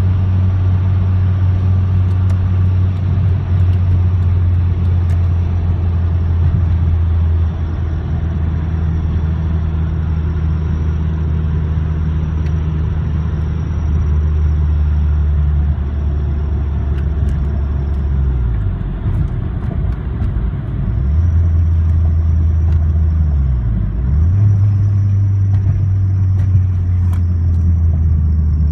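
Cabin sound of a 2003.5 Mazdaspeed Protege's turbocharged 2.0-litre four-cylinder engine and road noise while driving, a steady low drone. In the second half, as the car slows, the engine note dips and picks back up a few times.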